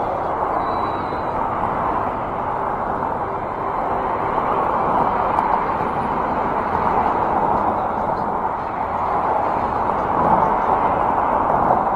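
Road traffic: cars driving past through the intersection, a steady rush of tyres and engines that swells a little as each vehicle goes by.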